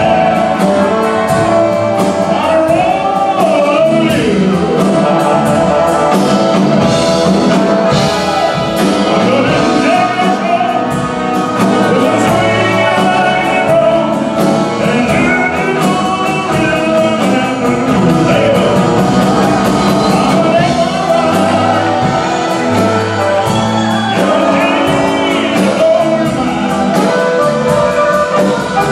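A live band playing a song, with a man singing lead through the microphone over electric bass and drum kit.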